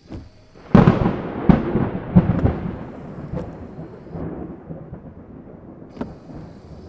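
Loud thunderclap about a second in, a few sharp cracks, then a rumble fading away over the next few seconds under steady rain on a car roof. Near the end comes a short whine with a click, as of the windshield wiper motor.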